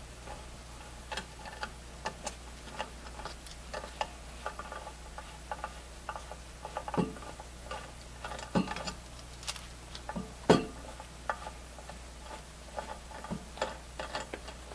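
Light metallic clicks and ticks at an uneven pace, with a few louder knocks around the middle, as loosened retaining nuts, feed screws and piston assemblies are unscrewed by hand from the valves of a refrigerant charging manifold.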